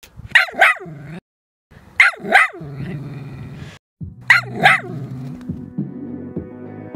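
Shetland sheepdog barking in quick pairs: three double barks, each pair about two seconds after the last. Music comes in underneath partway through.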